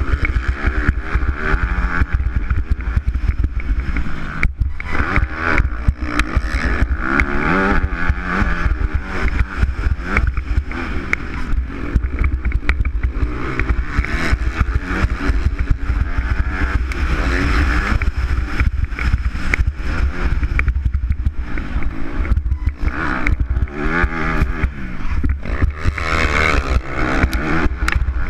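Motocross bike engine heard onboard, revving hard and rising and falling in pitch over and over as the rider accelerates and backs off through the corners, with heavy wind rumble on the camera microphone.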